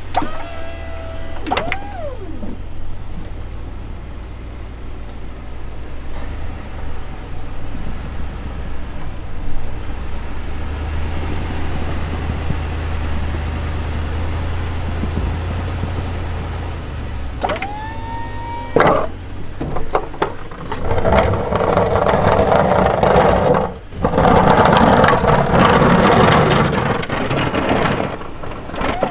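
Ford F-250 plow truck's engine running with a steady low rumble, while the snowplow's electric-hydraulic pump whines up briefly about a second in and again after about seventeen seconds as the blade is moved. Over the last several seconds a louder rushing, grinding noise as the truck pushes the blade through the snow.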